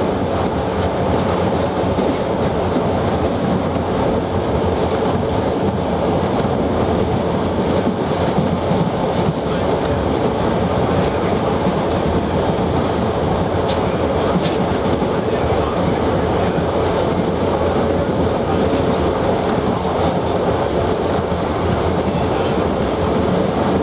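A 1920s CPH 'Tin Hare' diesel railmotor running steadily along the line: a constant mix of engine drone and wheels on the rails, with a few faint clicks.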